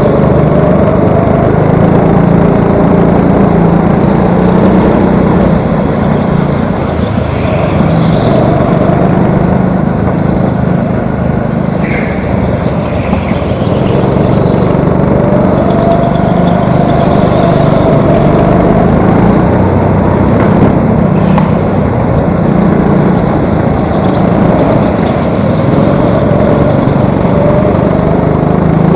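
Go-kart engine heard from on board during a race, its note rising and falling again and again as the kart accelerates out of corners and lifts into them.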